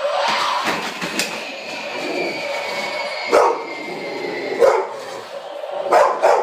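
A dog barking sharply at a startling animated Halloween reaper prop, about four barks starting some three seconds in.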